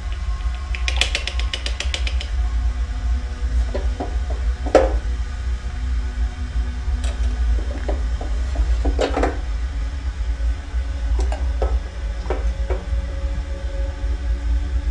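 Steady low ambient drone with scattered clinks and knocks of a ceramic mug, spoon and tea tins being handled, including a quick rattle of small clicks about a second in.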